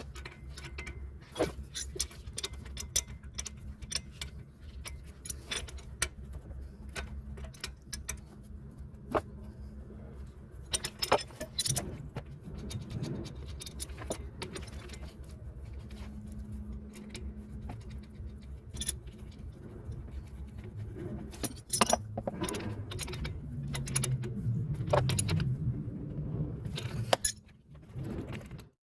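Metal hand tools clinking and rattling in irregular clicks as a replacement starter motor is bolted into place and the battery is reconnected, over a steady low hum.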